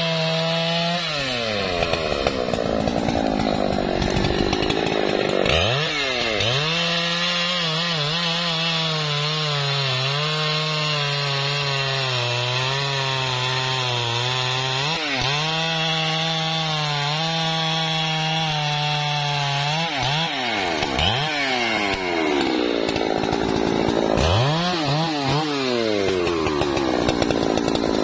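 Husqvarna 3120 XP large-displacement two-stroke chainsaw cutting through a log at full throttle, its pitch wavering under load. It drops toward idle about a second in and revs back up a few seconds later, then swings between idle and full revs several times near the end.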